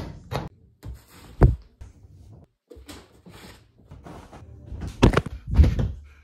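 A quick run of knocks, thumps and rustles from things being grabbed and clothes being thrown around in a small room. The loudest thump is about a second and a half in, and there are two more close together near the end.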